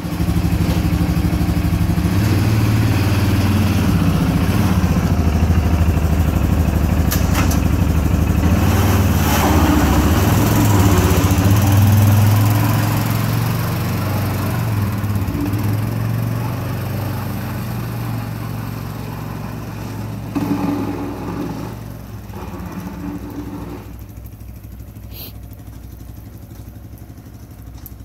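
ATV engine running as the quad pushes a front plow blade, loud at first and fading steadily after about twelve seconds as it drives away.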